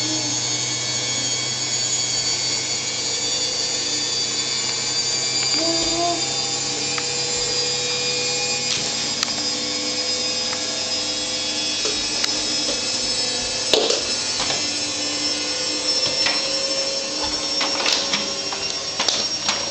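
Vacuum cleaner running steadily with a low hum and a high whine that drifts slowly in pitch. A few sharp clicks and knocks come in the last few seconds.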